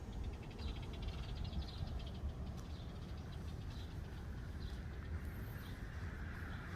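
Small songbirds chirping now and then in the trees, with a quick trill about a second in, over a low steady rumble.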